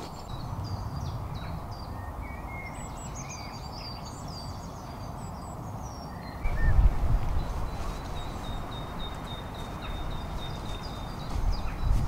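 Small birds singing, with many short high chirps and trills, then one thin high note held for a few seconds, over a steady outdoor hiss. A low rumble comes in about six seconds in and swells again near the end.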